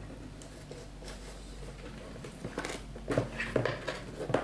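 Small keyboard accessories and their packaging being handled, with a few light clicks and taps in the second half over a steady low hum.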